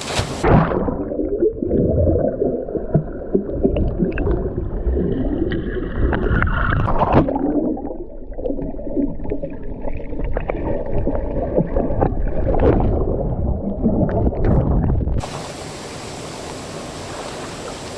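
Muffled gurgling and sloshing water with all the hiss gone, as when the microphone is under water. About fifteen seconds in, the open rushing hiss of the waterfall returns suddenly.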